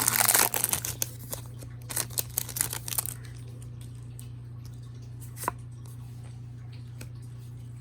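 A trading-card booster pack's wrapper tearing open with a crinkle, then light rustles and clicks of the cards being handled for about three seconds. After that only a steady low hum and a single click.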